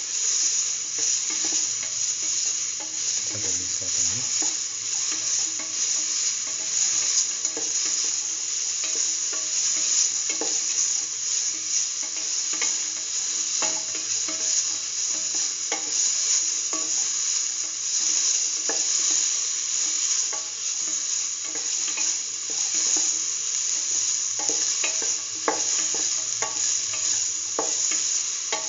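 Red and green bell pepper pieces, green chilies and garlic sizzling in oil in a steel pan, a steady hiss, while a spatula stirs them with scattered scrapes and taps on the metal.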